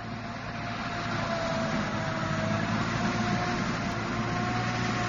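Lockheed Martin JLTV prototype military truck driving over a dirt course: steady engine and drivetrain noise with a thin whine that wavers slightly in pitch, growing a little louder over the first second.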